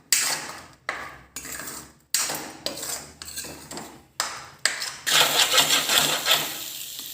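A utensil scraping and knocking against a kadhai as ginger paste is stirred in ghee, about two strokes a second. About five seconds in, a steady sizzle of the paste frying takes over.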